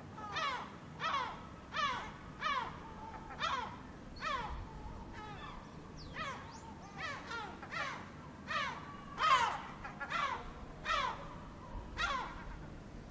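Seagulls calling: a long run of short cries, each sliding down in pitch, about one to two a second, the loudest about nine seconds in. A low steady background rumble sits beneath them.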